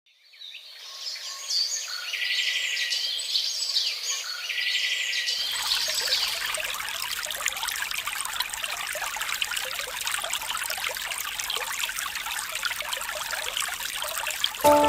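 Birds singing and chirping for the first few seconds, then steady trickling, splashing water from about five seconds in.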